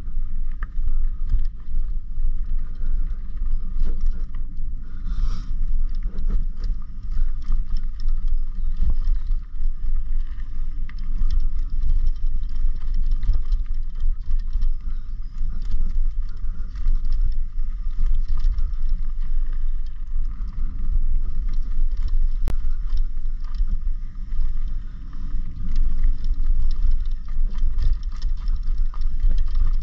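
Downhill mountain bike running fast over a dry, rocky dirt trail: tyres rumbling low and steady on the dirt, with frequent small knocks and rattles from the bike over rocks and roots.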